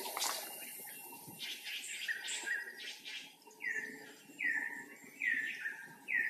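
Rustling and scuffling in dry leaf litter, with a few high calls. From about halfway in comes a run of short, high animal calls, about one a second, each dropping in pitch and then levelling off.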